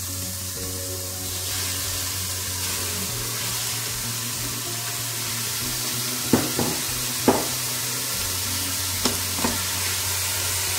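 Diced onion and chicken strips sizzling in the hot bowl of a Moulinex Cookeo multicooker on its browning setting; the sizzle grows louder a second or two in as the chicken goes in. A steady low hum runs underneath, and a few light knocks come around the middle.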